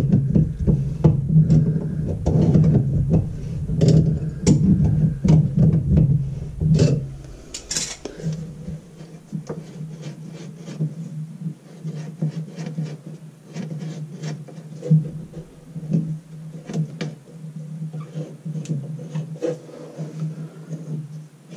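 Metal wrench rasping and scraping on the nut of a bathroom sink's pop-up drain body as it is worked loose, loudest in the first several seconds, then lighter scraping and clicks as the nut is turned by hand.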